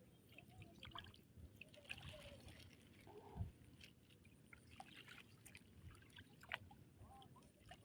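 Near silence, with faint trickling and small splashes of water and a few light ticks.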